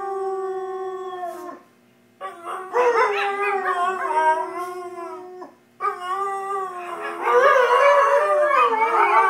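Dalmatian howling in three long, drawn-out howls broken by two short pauses. Near the end a second dog's howl overlaps with it.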